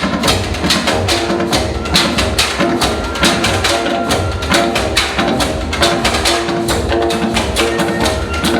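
Percussion-led music on instruments made from recycled materials: a fast, steady beat of sharp wooden-sounding knocks over a low pulsing bass, with short repeated pitched notes.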